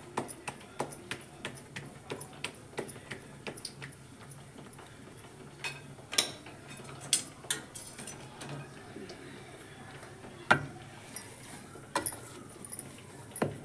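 Hands patting a lump of maize-flour and bathua dough between the palms: a quick run of sharp pats, about three a second. About four seconds in this gives way to a few scattered, louder knocks as the dough is pressed and kneaded against a steel plate.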